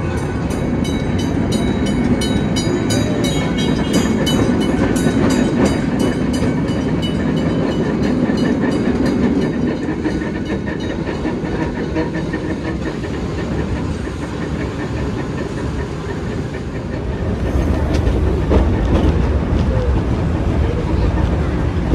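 Heritage electric tram running along its track, with a steady rumble and hum of wheels and motors and a fast, regular clicking through the first half.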